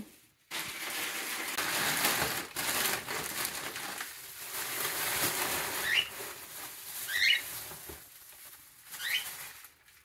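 Wood-shaving cage litter rustling as it is scooped up into a bag, with three short rising cockatiel chirps in the second half.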